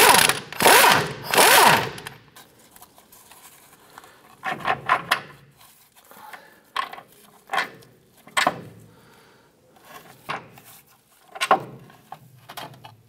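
Power wrench spinning a 15/16-inch socket in a few short loud bursts in the first two seconds, loosening the nuts on the upper control arm mounting studs. Scattered metal clinks and rattles follow as the loosened bolts are worked free.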